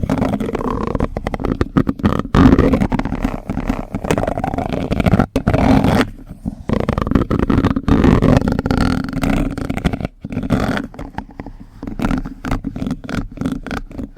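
Plastic spoon trigger sounds close to the microphone: rapid crackling clicks and scraping over a heavy low rumble, with short pauses about six and ten seconds in.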